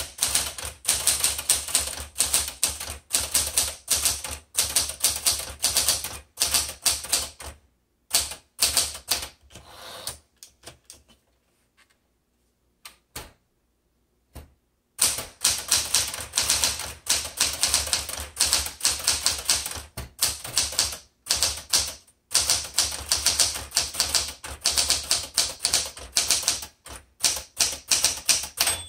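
Smith-Corona Galaxie Twelve manual typewriter being typed on: quick runs of typebar strikes against the platen. The typing pauses for a few seconds just before the middle, then resumes.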